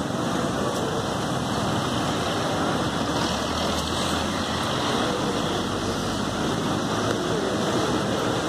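Steady road traffic noise, with vehicle engines running on a busy street.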